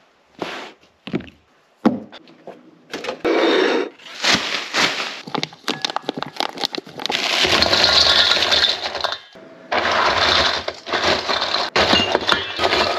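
Kitchen handling noises: a string of separate knocks, clatters and rattles as things are moved and set down on counters, with a longer rattling stretch in the middle. Near the end, glass bottles knock against ice cubes as they are wedged into an ice bucket.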